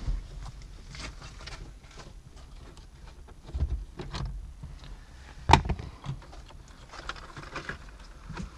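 Scattered plastic clicks and knocks as an aftermarket Android head unit is pried out of a Seat Leon's centre dash with a long metal screwdriver and pulled out on its wiring. A sharp knock comes about five and a half seconds in.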